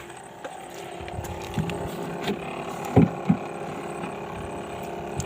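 A steady mechanical hum, with two knocks close together about three seconds in.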